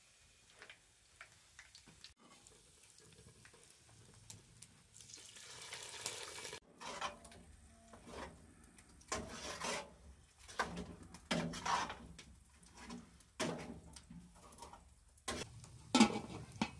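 Metal ladle stirring and scraping in a large aluminium pot of cooked greens, in a string of separate clinks. There is a brief hiss about five seconds in. Near the end the aluminium lid is set on the pot with a loud clank.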